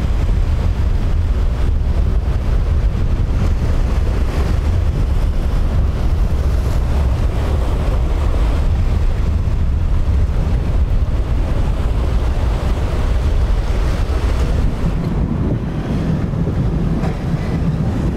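Strong wind rumbling on the microphone over breaking surf and rough water. About three-quarters of the way through the wind rumble eases and a steadier low drone comes in.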